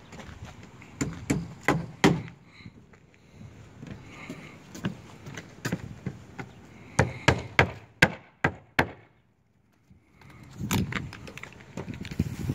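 Sharp knocks on a wooden plank roof deck covered in roofing underlayment. They come irregularly at first, then in a run of about six a little under half a second apart, followed by a brief lull and a few more near the end.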